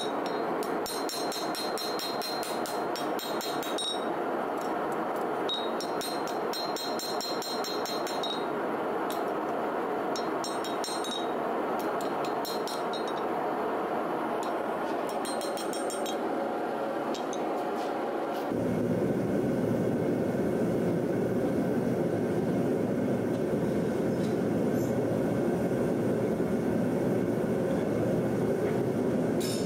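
Hammer striking hot leaf-spring steel on an anvil in runs of quick, ringing blows, over the steady rush of a gas forge. About two-thirds of the way through the hammering stops and the forge's steady rush becomes louder and fuller.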